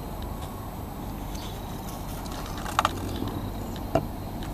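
Steady low outdoor background rumble, with a few light clicks and knocks as the metal case of a test meter is handled, the clearest near the middle and about a second before the end.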